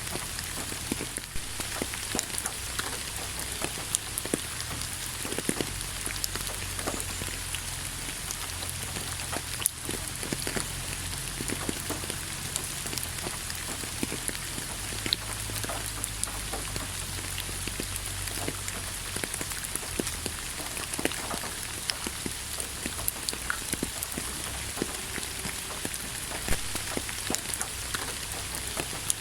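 Steady rain falling, with many individual drops pattering sharply on a surface over a constant hiss.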